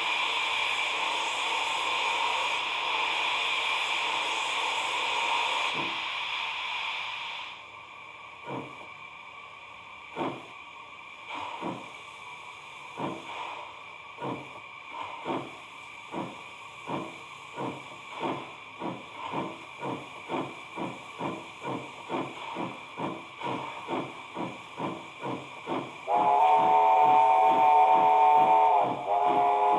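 Steam-locomotive sounds from a Scale 7 model of an NSWGR 12 class engine. A steady hiss of steam runs for about the first seven seconds. Then exhaust chuffs start slowly and quicken to about three a second as the engine gets under way, and near the end a loud multi-tone whistle is blown twice.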